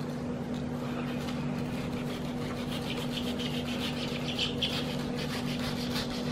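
Kitchen knife cutting through a prickly pear cactus pad on a cutting board: a run of short rasping, scraping strokes, busiest from about two seconds in, over a steady low hum.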